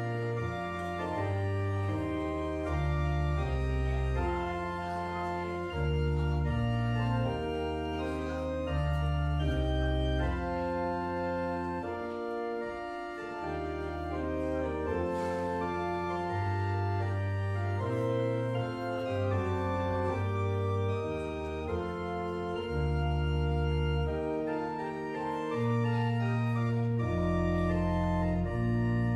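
Pipe organ playing a slow piece in full chords: sustained, held notes over a low bass line that steps from note to note.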